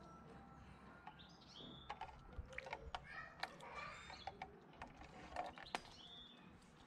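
Small birds chirping and calling, with a few sharp light ticks and splashes as a cat paws at water in a plastic tub.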